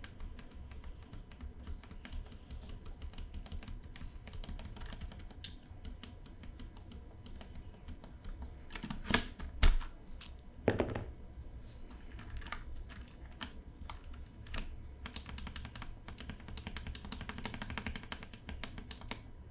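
Typing on a mechanical keyboard: a steady run of keystrokes with a few louder strokes about halfway through.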